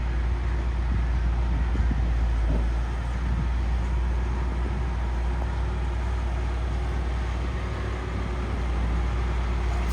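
Heavy earthmoving machinery's diesel engine running steadily, a low rumble with no clear change in pitch.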